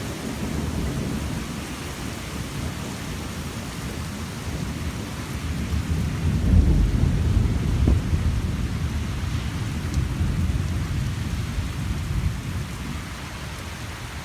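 Rain falling steadily, with a low rumble that swells about six seconds in and dies down near the end.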